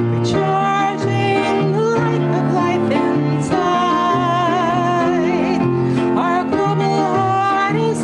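Recorded song played back: a woman singing with vibrato over sustained instrumental accompaniment, with a bass line stepping between held notes.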